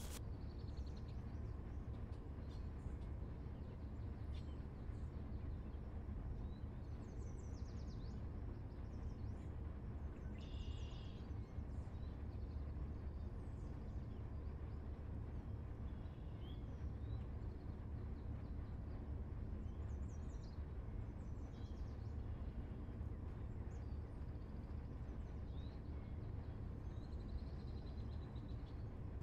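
Scattered bird chirps and short calls over a steady low rumble.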